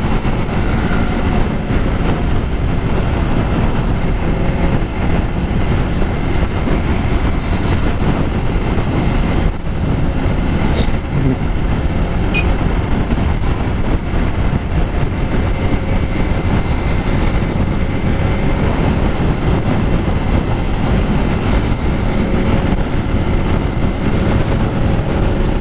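Steady rush of wind buffeting the microphone on a moving Yamaha XTZ Crosser motorcycle, with the single-cylinder engine running underneath.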